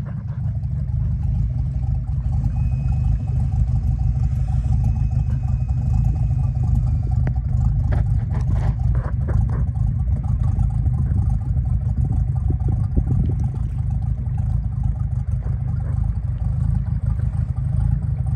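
Boat engine idling at low speed: a steady low rumble, with a few clicks and knocks about eight to nine seconds in.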